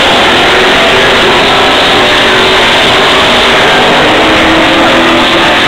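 NASCAR Sprint Cup stock cars' V8 engines running loud as the cars pass on the track below, a dense, steady wall of engine noise.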